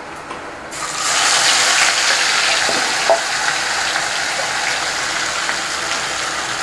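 Food dropped into hot mustard oil in a pan, starting suddenly about a second in as a loud sizzle and going on as steady frying.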